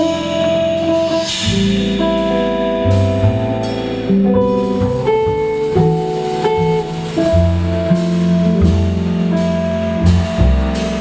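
A jazz trio playing live: a drum kit with cymbals under a bass line and a melody of held notes.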